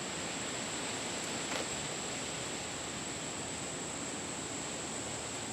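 Steady background hiss with a constant thin high-pitched whine and one faint tick about a second and a half in; the generator is not running.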